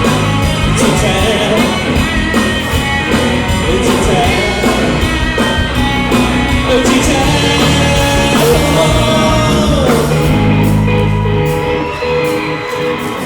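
Live rock band music with a singer over drums, getting quieter near the end.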